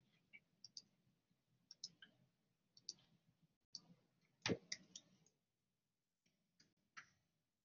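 Faint, irregular small clicks, a dozen or so, the loudest about four and a half seconds in, over near silence.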